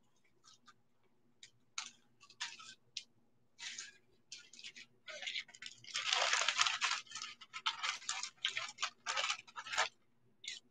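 Handling noise: irregular rustling and scratching as jewelry is handled close to the microphone, with a longer, denser stretch of rustling about six seconds in.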